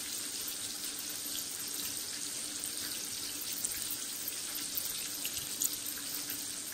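Flour-coated chicken shallow-frying in a little oil in a small camping pan over a wood fire: a steady sizzle with scattered small crackles.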